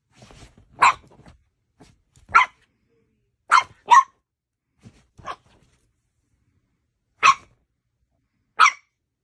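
French bulldog puppy barking: about seven short barks, spaced a second or two apart, with two in quick succession about three and a half seconds in.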